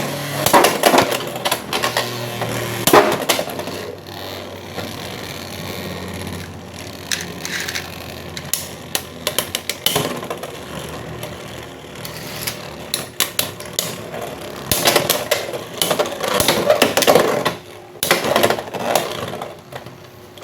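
Beyblade X spinning tops launched into a plastic stadium: a steady whirring and rattling as they spin, broken by repeated sharp clacks as they collide. The clacks come in clusters near the start, around the middle and again toward the end.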